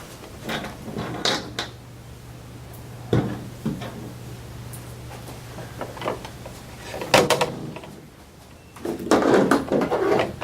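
Hand-handled plastic parts: a battery cover being fitted back on, with scattered clicks and knocks that come thicker near the end, over a faint steady hum.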